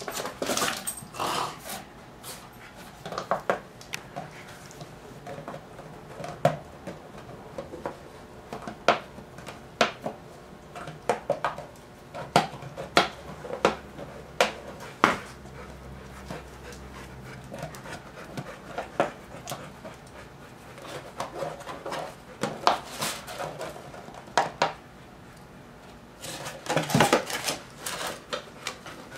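Dogs moving about and playing on a hard tiled floor: panting, with scattered sharp clicks and knocks from claws and from a puppy nosing an object across the floor, and a louder flurry of knocks near the end.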